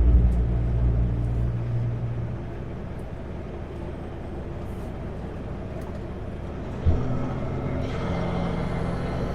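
Kenworth W900L semi truck's diesel engine running under way, heard inside the cab. A loud low drone fades over the first two seconds. About seven seconds in there is a sharp knock, then a fuller, higher drone with a faint rising whine.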